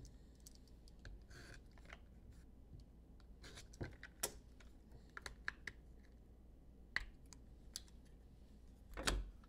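Faint scattered clicks and small scratches of a clear plastic trading-card case being handled and pried open by hand, with a louder brief handling noise near the end.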